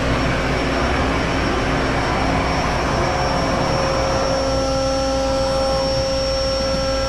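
ShopSabre PRO408 CNC router starting a job: the spindle runs with a steady whine while the gantry moves the head over the workpiece, over a steady rush from the vacuum hold-down and dust collector. More steady tones join about halfway through as the head moves in.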